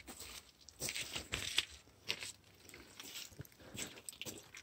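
Irregular rustling and crunching, like footsteps and handling on dry grass; no engine is running.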